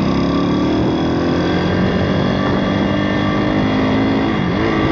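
Pit bike's YX 160cc single-cylinder four-stroke engine running high in the revs under way, the pitch holding steady, then dipping briefly near the end before picking up again. It has to be held high in the revs because it cuts out when they drop, which the rider thinks might be the valves.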